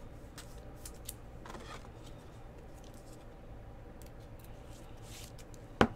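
A trading card being slid into a clear rigid plastic card holder: faint rubbing and light plastic ticks, then one sharp plastic clack shortly before the end.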